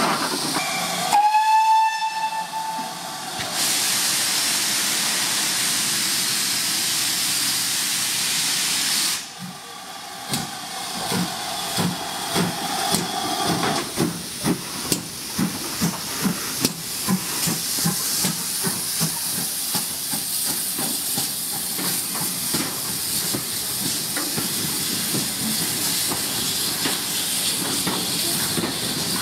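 Steam locomotive sounding one whistle blast, then a steady loud hiss of escaping steam. About ten seconds in it starts away with exhaust beats that come faster as it gathers speed, then runs on with a steady hiss and rumble.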